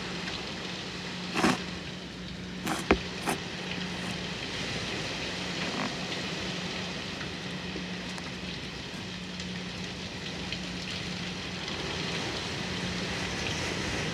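Heavy hurricane rain pouring down steadily in a dense hiss, with wind in the trees. A few sharp knocks sound between about one and a half and three and a half seconds in, over a faint steady low hum.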